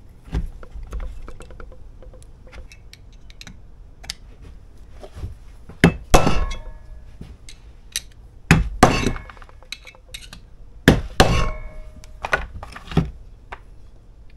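Hammer blows on the metal parts of a John Deere Model M hydraulic pump: a few sharp, ringing strikes, mostly in close pairs, with lighter metal clinks between. The part being struck is stuck fast.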